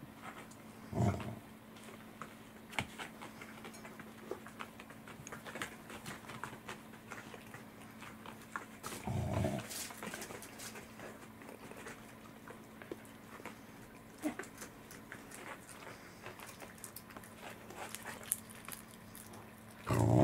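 Welsh corgi making short low begging grumbles three times: briefly about a second in, again around nine seconds, and longer and louder at the very end. Faint clicks of a cat chewing fish come in between.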